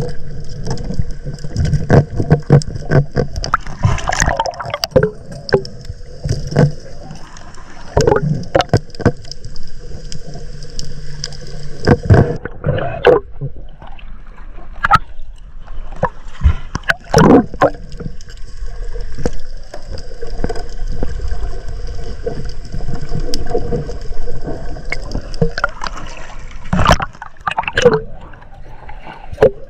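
Water gurgling and sloshing, broken by many sharp knocks and clicks, over a steady hum that breaks off about twelve seconds in.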